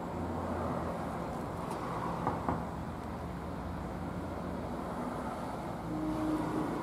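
Steady low background hum and rumble, with a faint click about two and a half seconds in.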